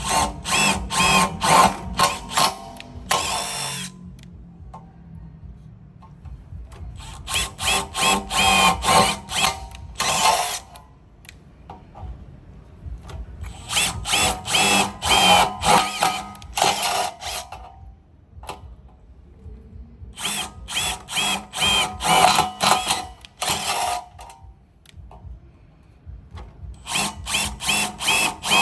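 Makita DTD173 18V brushless cordless impact driver hammering in five runs of a few seconds each, separated by short pauses. Each run is a rapid rattle of impacts over a motor whine.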